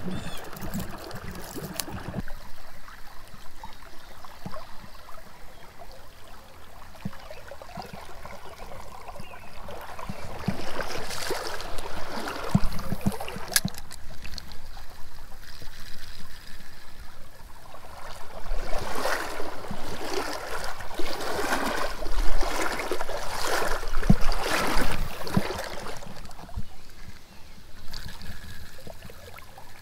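Water of a shallow trout stream running and splashing, louder in stretches, with a few sharp knocks.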